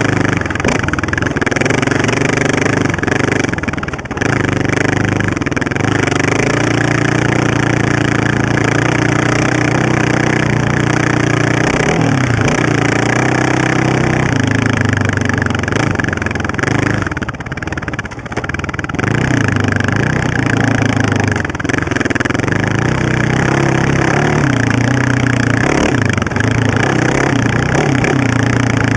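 Honda TRX700XX sport ATV's single-cylinder four-stroke engine, fitted with an FMF exhaust, running under throttle with its pitch rising and falling as the rider works the throttle. It eases off briefly about four seconds in and again for a couple of seconds around the seventeen-second mark.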